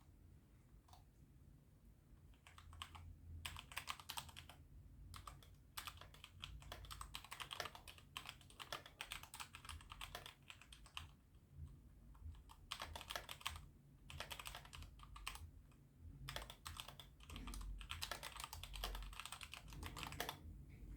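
Typing on an E-YOOSO Z-11 60% mechanical keyboard with red linear switches: quick runs of soft key clicks in several bursts with short pauses between them.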